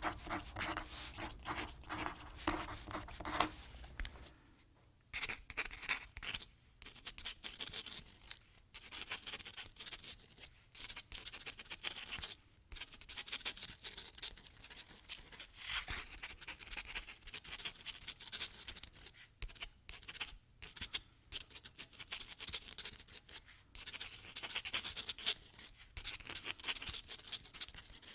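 Scratching and rubbing strokes, with rapid dense tapping for the first few seconds.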